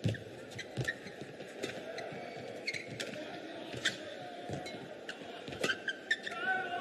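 Badminton rally: rackets striking the shuttlecock back and forth in sharp hits about once a second, mixed with footfalls on the court mat and a few short shoe squeaks near the end.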